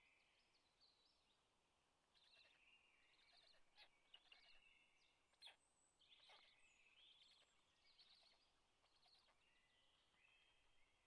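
Faint forest songbirds singing, a dense mix of chirps, trills and warbles, with a few sharp ticks near the middle.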